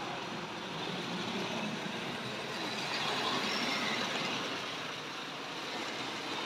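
Tri-ang OO-gauge saddle tank model locomotive running along the track with two coal wagons: a steady whirr of its small electric motor and rumble of wheels on the rails, a little louder about three seconds in as it passes close by.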